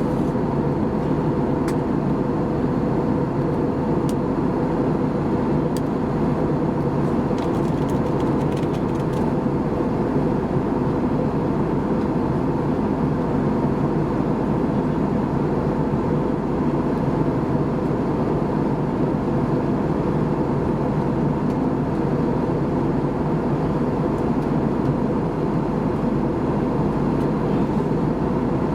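Airbus A320 cabin noise during the descent: a steady drone of the jet engines and airflow over the fuselage, with a constant hum running through it.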